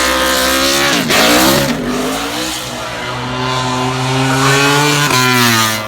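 NASCAR stock car's V8 engine running hard. The revs drop sharply about a second in and climb back, hold steady, then fall again near the end.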